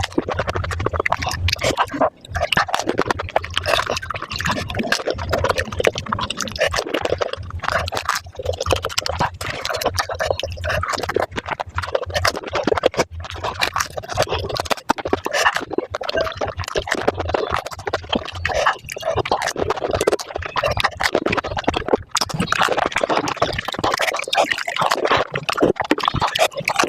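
Panipuri being eaten, sped up five times: a rapid, unbroken stream of crunches from the crisp puri shells and wet slurps of the spiced water.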